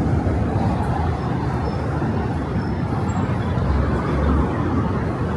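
Steady low rumble of city street traffic, with the lowest rumble swelling briefly about four seconds in.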